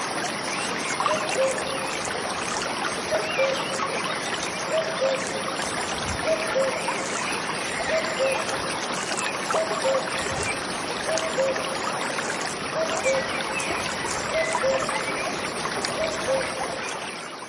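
Common cuckoo repeating its two-note falling "cu-ckoo" call about every second and a half, over the steady rush of a flowing stream.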